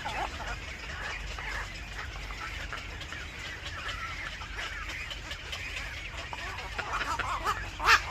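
Birds chirping and calling continually, growing louder toward the end, with a few sharp, loud calls right at the close.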